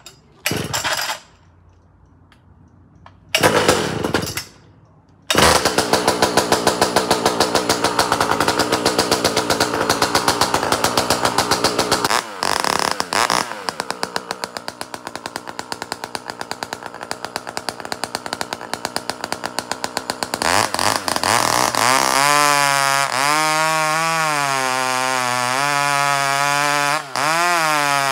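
Pioneer P-51 two-stroke chainsaw, fitted with a new Tillotson carburettor and a modified muffler, starting up: two short bursts, then it catches about five seconds in and runs loud at high revs. Near the end it drops to a lower, wavering idle.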